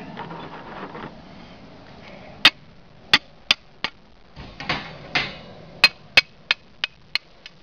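About a dozen sharp metallic knocks at an uneven two or three a second, starting a couple of seconds in, as a freshly welded aluminum piece is struck to try to break the weld loose. The weld holds.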